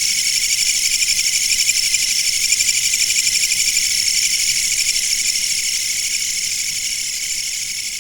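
Insects trilling: a dense, continuous high-pitched buzzing trill with a fine rapid pulse, slowly fading toward the end.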